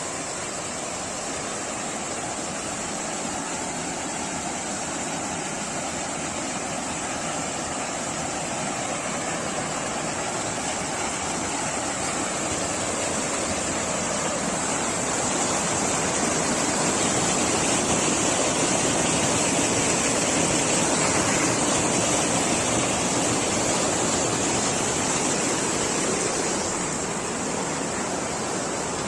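Steady rush of a large body of moving water, such as a waterfall or strong current, swelling louder for about ten seconds in the middle.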